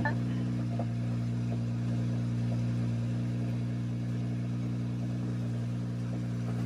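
A 2011 BMW 335is's twin-turbo 3.0-litre inline-six idling steadily, heard from inside the car's cabin.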